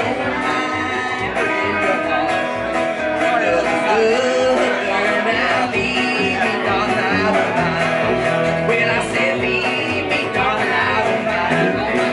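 Live country band playing: electric guitar and acoustic guitar over a plucked upright bass that keeps a steady beat.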